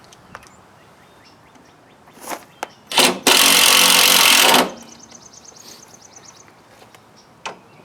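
Impact wrench driving a thread-cutting bolt: two short bursts on the trigger, then a solid hammering run of about a second and a half as the bolt is run in. A faint fast ticking follows.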